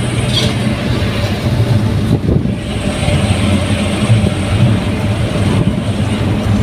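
Daihatsu Gran Max pickup truck on the move: a steady engine hum under constant road and tyre noise.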